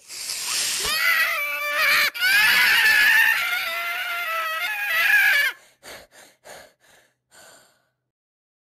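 A voice screaming loudly and harshly for about five seconds, with a brief break about two seconds in, then several short breathy bursts.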